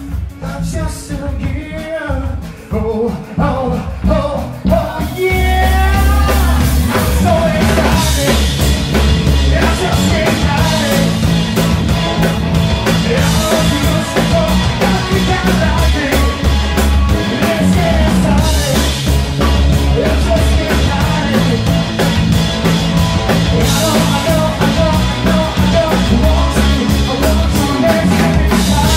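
Live rock band with a male singer: the first few seconds are sparser and quieter, then about five seconds in the full band comes in loud with drums, bass guitar and electric guitar under the vocals.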